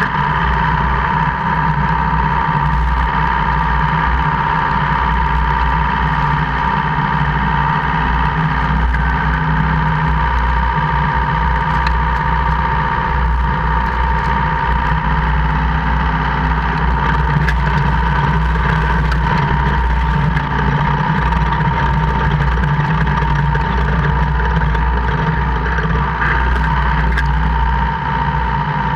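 2002 Jeep Cherokee KJ (Liberty) running with a steady drivetrain drone, a constant high whine and faint scattered clicks. The owner is chasing a gear-grinding and clicking noise that appears only in 4H or 4L, never in 2H.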